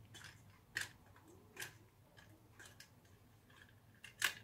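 Small metal parts of an Abu 6500 fishing reel clicking against each other and the bench as they are handled: a few faint, separate clicks, the loudest near the end.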